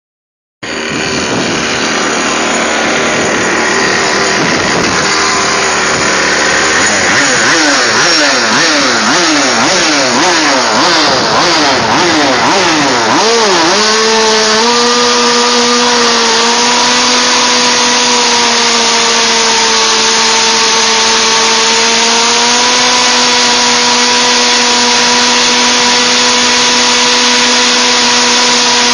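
Small two-stroke petrol engine of a 1/5-scale RC touring car running loud, revved up and down again and again, then held at a steady high pitch from about halfway.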